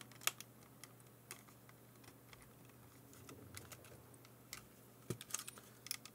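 Small plastic clicks and snaps from the housing of an AIWA HS-TX610 portable cassette player being pried apart by hand, its snap hooks catching and letting go. The clicks come irregularly, a sharp one just after the start and a quick cluster near the end.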